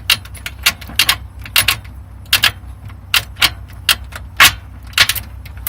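Gear shift linkage of a Honda Civic Type R EP3 being worked through the gears, giving about a dozen sharp metallic clicks and clacks at uneven intervals. This is a test of gear selection on newly fitted shifter bushes, and the linkage is moving correctly.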